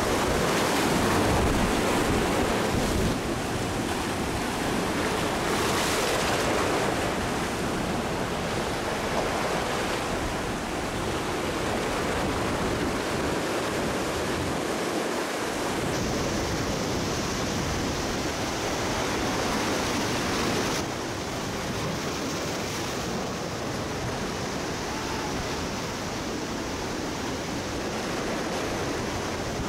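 Ocean surf breaking and washing in a steady rush, with some wind on the microphone; the sound shifts abruptly twice, about halfway through and about two-thirds of the way through.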